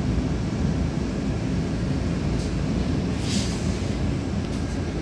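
City bus engine running, heard from inside the passenger cabin as a steady low rumble, with a short hiss about three seconds in.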